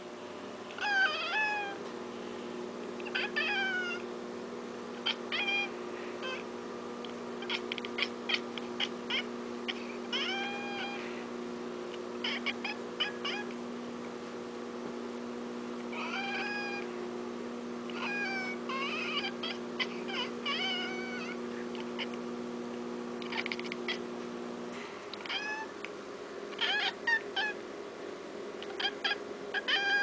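Manx cat chirping and meowing at birds outside the window, in short calls that come in clusters every second or two.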